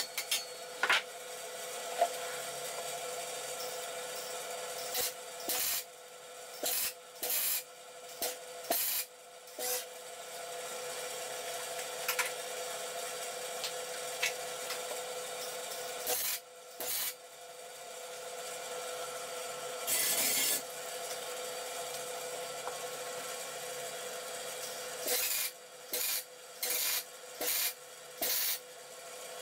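MIG welder laying short tack welds on a steel box-section frame: bursts of crackle about half a second each, five in quick succession near the end. A steady hum runs underneath.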